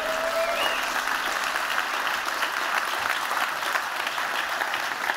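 Audience applauding in a large hall: many hands clapping in a dense, steady patter.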